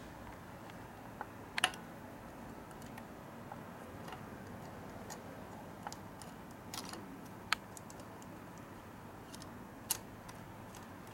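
Sparse, light clicks and taps a few seconds apart over faint steady background noise: small handling noises during the search.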